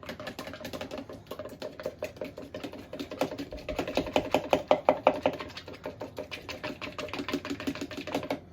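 A utensil whisking a homemade honey mustard dressing in a bowl, clinking against it in a rapid, steady rhythm to blend in the added olive oil. The clinking is loudest around the middle.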